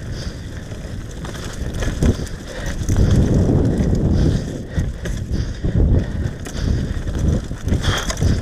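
Mountain bike riding fast down a muddy, leaf-strewn dirt trail: the tyres rumble over the ground, with irregular knocks and rattles from the bike over bumps. The rumble grows louder about three seconds in.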